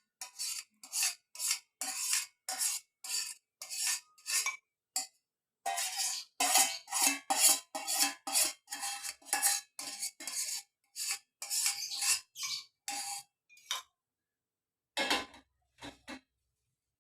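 A metal spoon scraping and rubbing against cookware in quick repeated strokes, about two a second, pausing briefly about five seconds in and stopping for a moment near the end.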